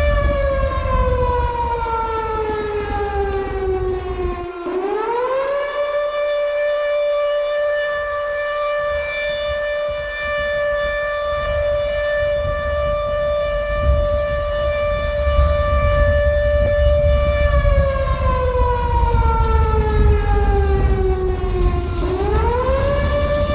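Civil-defence-style alarm siren sounding an earthquake drill: a steady wailing tone that sinks in pitch over about four seconds, swings quickly back up, holds level for about twelve seconds, then sinks again and rises back near the end. A low rumble runs underneath.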